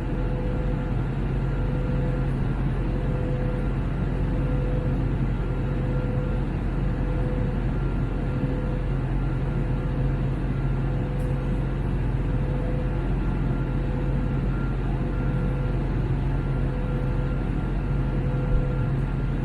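Steady cabin noise inside an Airbus A321neo (A321-271NX) with Pratt & Whitney geared turbofan engines: a constant low drone with a faint steady whine above it, unchanging throughout. One brief click near the end.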